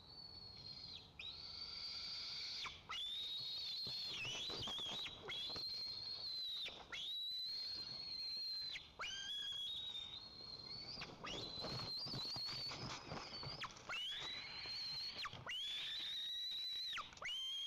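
White-tailed eaglet begging for food: a long string of high, thin whistled calls, each held for a second or two with brief breaks between them.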